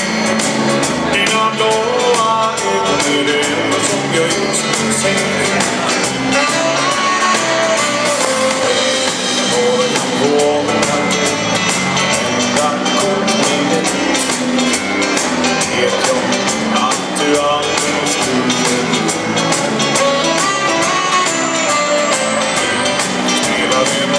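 Swedish dansband playing a song live, with guitar and a steady drum beat.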